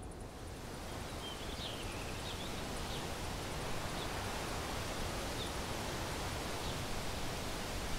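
A steady rushing hiss of outdoor ambience, with a few short, high bird chirps scattered through it.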